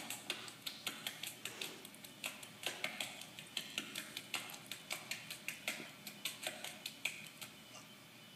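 Two people's hands clapping and slapping together in a quick patty-cake-style clapping game, several sharp claps a second, stopping shortly before the end. Heard faintly from a TV speaker.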